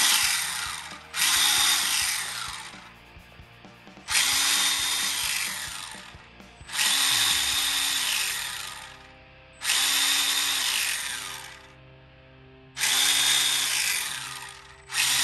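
The Tamiya Clodbuster's two brushed electric motors and axle gearboxes spin up on the throttle about five times, roughly every three seconds. Each run cuts in suddenly with a whine that rises and then falls as the motors wind down. The motors are being broken in on the bench.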